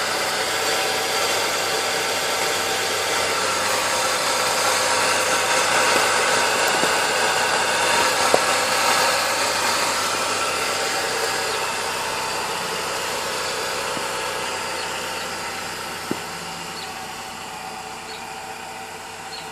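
2000 Chevy Cavalier engine idling with a steady noisy whine, which the owner puts down to a bad alternator and a bad timing chain. The noise fades gradually, with two sharp clicks about eight and sixteen seconds in.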